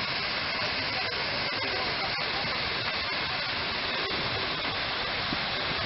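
Large public fountain's tall central water jet, a steady rush of spray falling back into the basin.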